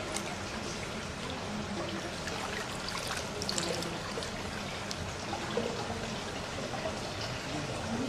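Steady running water, a continuous trickling pour.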